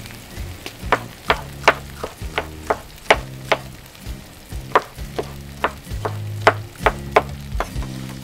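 Chef's knife chopping a red bell pepper on a wooden cutting board: sharp, irregular knocks of the blade striking the board, about two a second, with a short pause about halfway.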